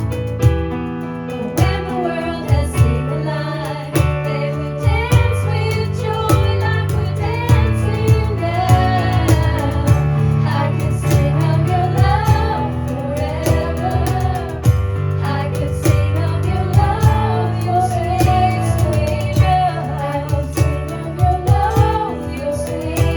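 Live worship music: a woman singing a sung melody over guitar strumming, in a steady rhythm.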